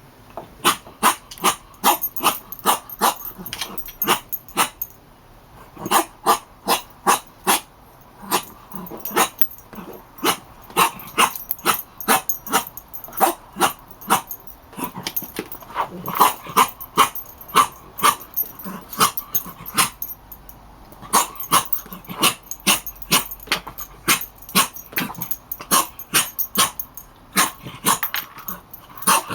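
Dog chewing a squeaky toy, setting off short squeaks in quick runs of about two to three a second, with brief pauses twice.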